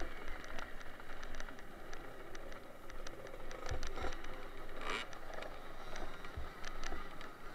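Wind and riding noise through a helmet-mounted camera on a 50cc automatic youth motocross bike racing over a rough grass track, with many sharp clicks and a few low knocks from the bumps. The engines are faint under the noise.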